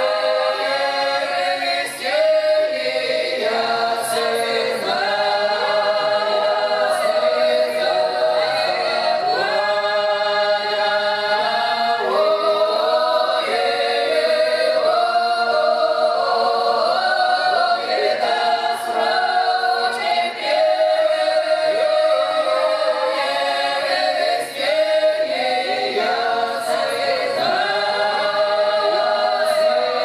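A folk ensemble of mostly women's voices singing a drawn-out Russian village song (protyazhnaya) from the Belgorod region a cappella in several parts. The voices hold long notes and slide from one pitch to the next without a break.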